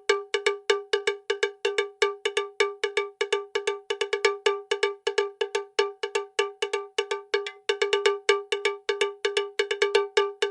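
Digital alarm clock's alarm sounding: a fast run of short bell-like electronic beeps, about five a second, repeating evenly.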